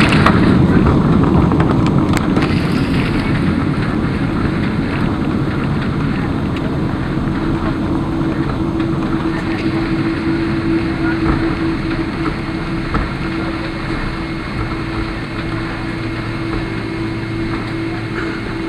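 Cabin noise of a Boeing 777 with Pratt & Whitney PW4090 engines slowing on the runway after touchdown: a steady rush of engines and wheels on the wet runway that grows gradually quieter as the plane slows. A steady hum sets in about a third of the way through.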